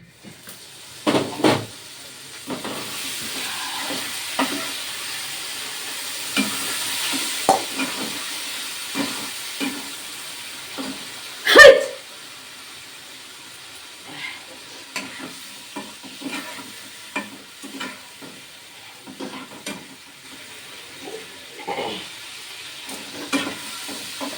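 Spicy egg curry sizzling in a pan while a spatula stirs it, with frequent knocks and scrapes against the pan. The sizzle is louder in the first half. A single loud, sharp burst about halfway through is the loudest sound.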